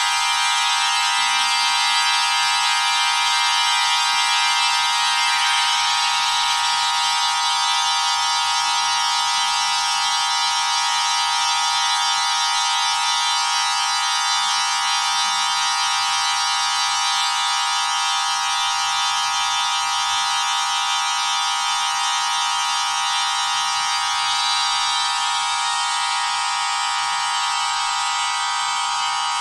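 Pipe organ holding a dense, high tone cluster: many notes sounding at once as one steady mass, with no low notes under it. The upper notes of the cluster change a few times, about six seconds in, again near the middle, and near the end.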